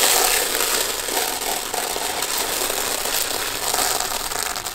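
Expanded clay pellets (Dehner Pflanzton) pouring in a steady stream from a plastic bag into a plastic planter, a dense rattling hiss of many small pellets striking the plastic and each other. It eases off near the end.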